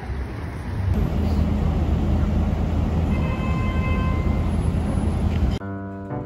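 Busy city street traffic: car and taxi engines running in a steady low hum, with a faint high whine about three seconds in. Near the end it cuts to background music.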